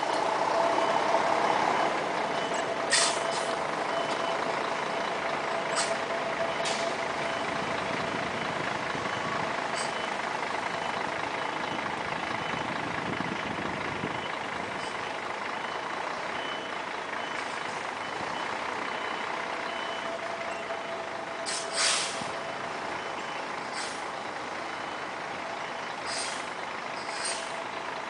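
Volvo B10M articulated bus's six-cylinder diesel running at low revs while reversing, with a reverse alarm beeping steadily and a few short sharp air-brake hisses. The engine grows gradually fainter as the bus backs away.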